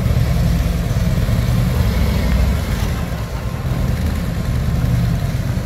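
Harley-Davidson Ultra Classic touring motorcycle's V-twin engine running steadily at low speed as the bike rolls slowly.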